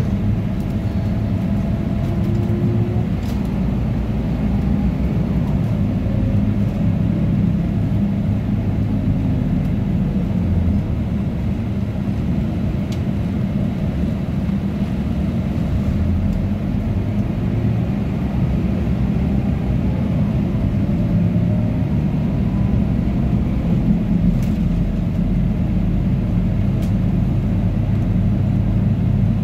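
Scania OmniLink CK230UB city bus heard from the passenger cabin while driving: a steady engine and drivetrain rumble, with faint whine from the ZF 5HP504C automatic gearbox, under the loud noise of the air conditioning.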